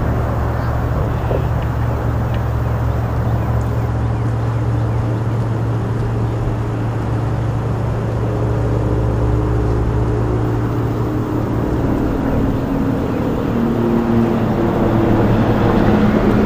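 A motor droning steadily in the distance, with a low hum; in the second half its pitch shifts slightly, as if its speed is changing.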